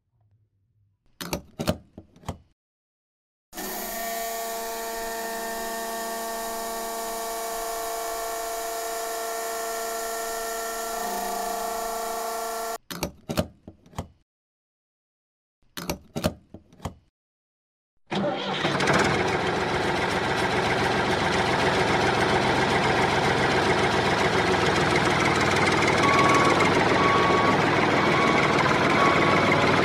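A few plastic clicks, then a small pump motor humming steadily at one pitch for about nine seconds as the toy fuel pump runs, then more clicks. About eighteen seconds in, an engine starts and keeps running, with a repeated beeping near the end.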